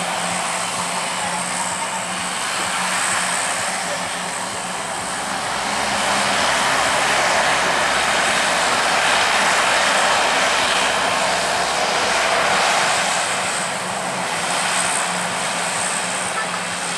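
Lockheed C-130 Hercules' four turboprop engines running as it taxis: a steady propeller drone with a low hum under it, growing louder about six seconds in and easing off again near the end.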